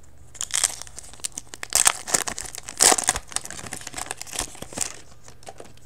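Foil trading-card pack wrapper crinkling and tearing as it is ripped open by hand: a run of sharp crackles, loudest about two and three seconds in.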